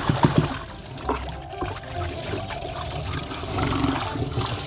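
Water running from a garden hose, splashing and trickling into a tub of water as dogs are hosed down.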